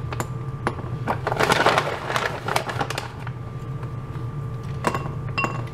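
Plastic snack bags crinkling and rustling as they are handled, with irregular sharp clicks and taps, busiest about a second and a half in, over a steady low hum.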